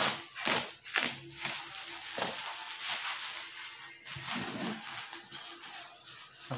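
Plastic bubble wrap crinkling and rustling as it is pulled off a cardboard box, in several loud sweeps during the first two seconds or so. Then quieter rustling and scraping as a utility knife slits the packing tape.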